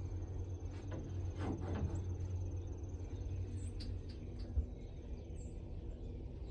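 Outdoor ambience: a steady low rumble under a thin, steady high whine, with a few faint, short bird chirps about three and a half to five seconds in.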